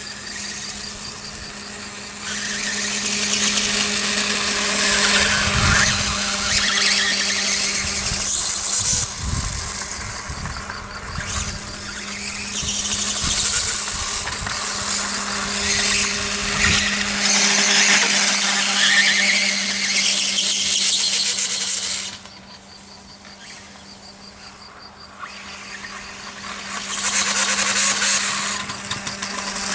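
Electric RC dirtbike motor whining as the throttle is opened and eased, with tyre noise, rising and falling in several surges and dropping away sharply for a few seconds before building again near the end.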